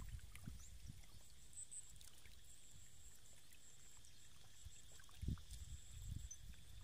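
Faint splashing and sloshing of catfish wriggling in shallow muddy water, over a low rumble, with a dull thump about five seconds in.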